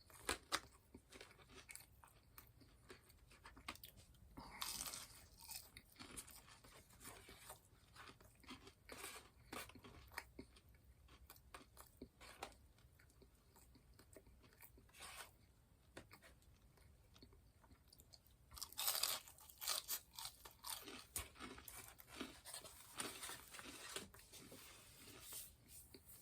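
A person chewing and crunching food close to the microphone: irregular crisp crackles and wet mouth clicks, with busier spells of crunching about four seconds in and again about nineteen seconds in.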